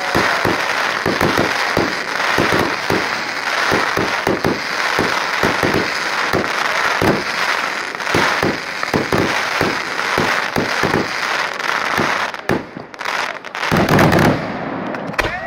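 Fireworks display: dense, rapid crackling and popping from gold crackling shells bursting overhead, continuous. About twelve and a half seconds in it thins briefly, then a louder blast of hissing noise follows for about a second and a half.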